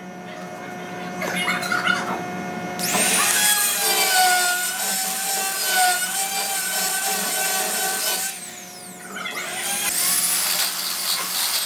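Power drill boring through steel plate: a steady motor hum under a loud, rough cutting noise with a wavering squeal from the bit. The cut runs about five seconds, eases off briefly, then bites again.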